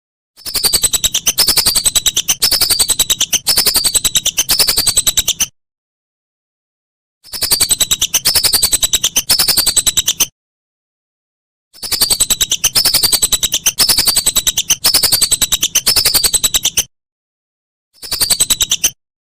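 Whistling ducks (belibis) calling: rapid runs of high, falling whistled notes in bouts of a few seconds, with abrupt total silences between the bouts, as in an edited, looped recording used for songbird training.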